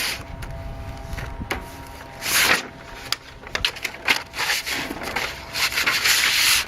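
Hand rubbing hard over freshly laid sandpaper-like grip tape on a skateboard deck, a string of scratchy swipes of varying length pressing out air bubbles.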